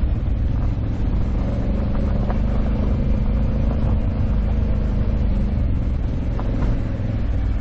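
Honda Africa Twin 1100 DCT's parallel-twin engine running steadily while the motorcycle rides along a gravel road. Heavy wind noise on the microphone and a few small ticks from gravel under the tyres.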